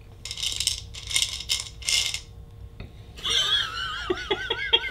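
Human reaction to a foul-tasting jelly bean: a few short breathy exhales, then about three seconds in a high, wavering voice breaking into quick pulses of laughter.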